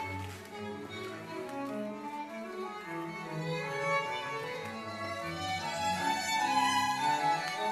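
A string quartet playing, with violins over cello on sustained bowed notes. It grows a little louder in the last couple of seconds as a higher violin line comes forward.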